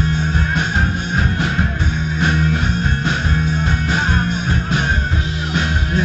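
A punk rock band playing live: electric guitar, bass guitar and drums, with steady drum hits under the sustained guitar and bass notes.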